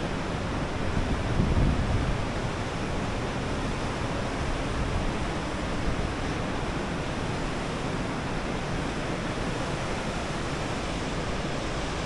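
A steady rushing noise, heaviest in the low end, that swells briefly about a second in.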